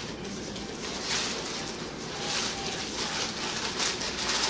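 Plastic packing wrap rustling and crinkling in the hands in irregular bursts, loudest about a second in, around two and a half seconds in and near the end.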